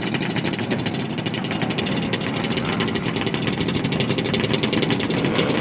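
Several old Yamaha L2-series two-stroke motorcycles running together at idle, a steady rapid popping from their exhausts.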